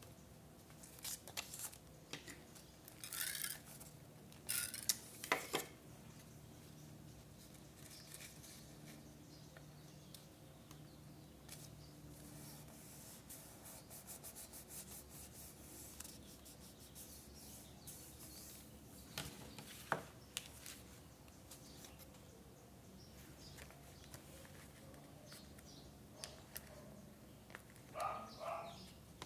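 Paper crafting sounds: paper handled and rubbed in short crisp rustles, with a few sharp taps and a stretch of rapid fine ticking near the middle.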